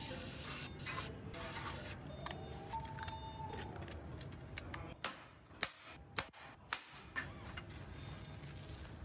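Small metal clinks and clicks of nuts and hand tools on a V8 engine's exhaust manifold studs, with several sharp clicks about half a second apart a little past the middle, over steady factory background noise.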